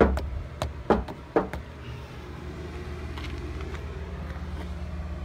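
A vehicle engine idling, a steady low rumble, with three or four sharp knocks in the first second and a half.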